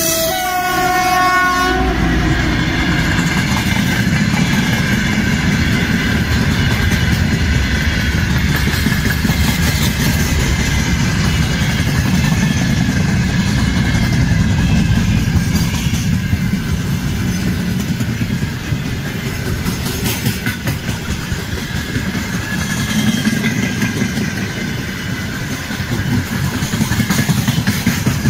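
VL10UK electric locomotive sounding its horn for about two seconds as it comes by, then its freight train's wagons rolling past with a loud, steady rumble and occasional knocks from the wheels.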